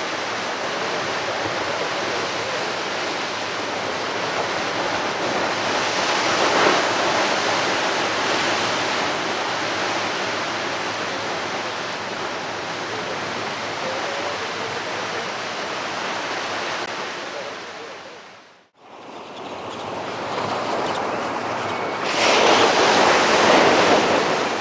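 Ocean surf breaking and washing on a beach, a steady rush that swells twice, once about six seconds in and again near the end. It fades briefly to silence about three-quarters of the way through, then returns.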